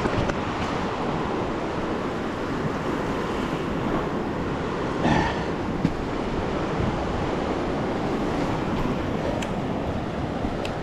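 Ocean surf washing steadily onto the beach, with wind buffeting the microphone and a brief louder sound about five seconds in.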